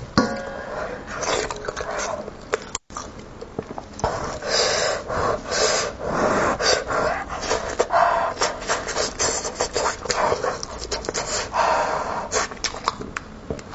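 Close-miked wet chewing, lip-smacking and slurping of a person eating braised sheep and goat head meat. Irregular, quick clicks and squelches run throughout.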